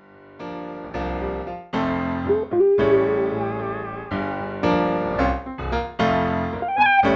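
Instrumental opening of a mellow R&B pop song: electric piano chords with a bass line underneath, starting from silence and struck anew about once a second.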